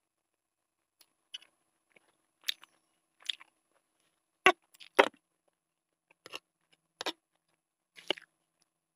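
Close-miked eating sounds from a plate of Maggi noodles: short, scattered clicks of a metal fork against a ceramic plate as the noodles are stirred and gathered, along with wet mouth and chewing noises. The two loudest clicks come about halfway through.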